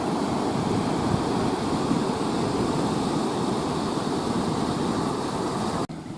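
Sea surf washing on a rocky shore: a steady rushing that drops away abruptly near the end, leaving a quieter hiss.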